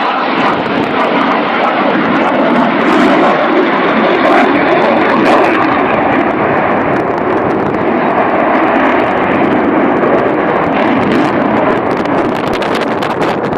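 Aircraft at an air show, a loud steady engine noise that swells slightly about four to five seconds in.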